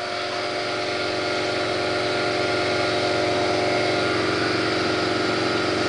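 A machine running steadily with a continuous hum, swelling a little over the first couple of seconds and then holding even.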